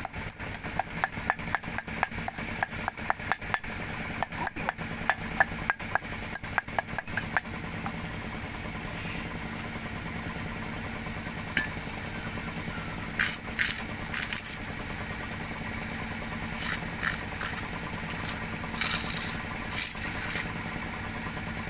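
A steel rod is pounded into a hollow in a stone block to crush gold ore, giving rapid sharp knocks, several a second; they stop about seven seconds in. After that, scattered light scrapes and clinks sound as the crushed ore is scraped up, over a steady engine hum.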